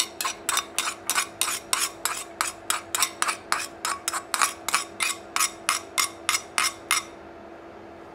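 Metal spoon tapping against a bowl in quick, even strokes, about three to four a second, knocking chopped garlic out into a frying pan; the tapping stops about seven seconds in.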